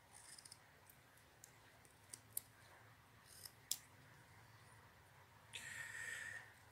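Carving knife taking small cuts from a soft alder-wood figure: a string of faint, sharp clicks and ticks as the blade slices off chips, then a longer faint rustle about five and a half seconds in.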